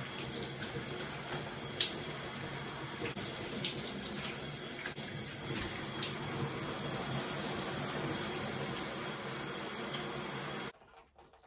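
Shower spray running steadily, the water falling on hair and skin as the hair is rinsed, with a few small splashes; it cuts off abruptly near the end.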